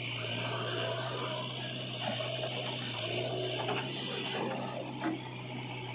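A JCB 3DX backhoe loader's diesel engine running steadily as it works the digging arm, with a few short knocks about two, four and five seconds in.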